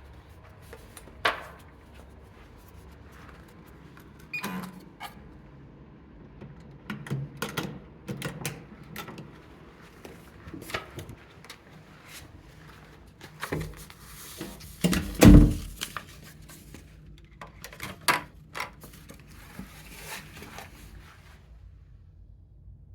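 Scattered clicks, knocks and thumps of things being handled in a small room; the loudest thump comes about fifteen seconds in.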